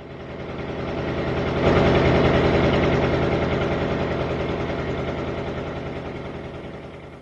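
Vehicle engine running as it passes by: it swells up over the first two seconds, then slowly fades away.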